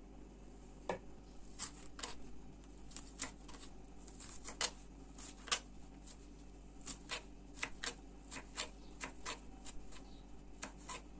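A knife chopping courgette blossoms on a plastic cutting board: light, irregular taps of the blade on the board, about two a second.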